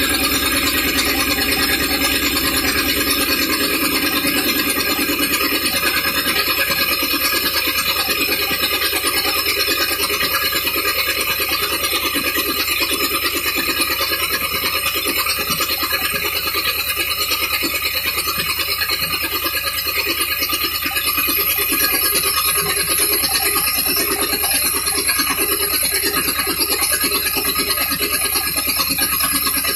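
Engine of a 1974 Condor II motorhome idling steadily, heard from inside the cab with the engine cover off and the carburetor open without an air cleaner, giving a rapid, even, rasping pulse. It is running pretty well after a fresh start.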